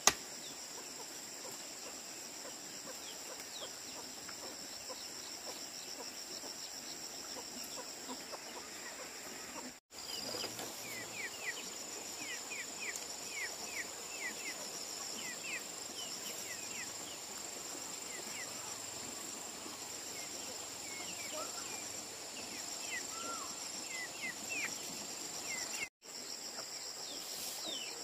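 Hatchling poultry peeping in many short, falling chirps over a steady high-pitched drone of insects. The peeping is sparse at first and thickens in the middle.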